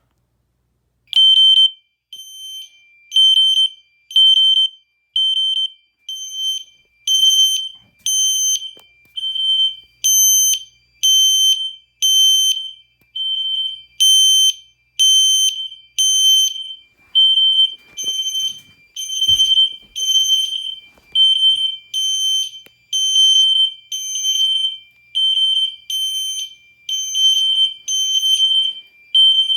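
Two fire alarm horn strobes, a System Sensor SpectrAlert Classic and an L-Series, sounding a high 3000 Hz tone in pulses about once a second, starting about a second in. The louder pulses come in groups of three, the code-3 temporal pattern of an activated alarm.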